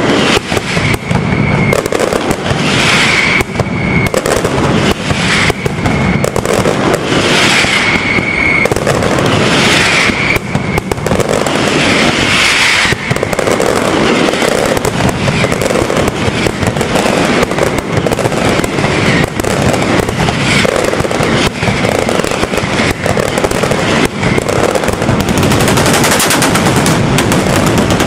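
Mascletà firecrackers going off in a dense, unbroken barrage of rapid bangs, with a short high whistle now and then in the first half.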